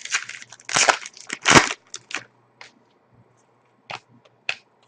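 Paper-and-foil rustling of trading cards and a card pack wrapper being handled, in loud crackly bursts for about two seconds, then a couple of short sharp clicks near the end.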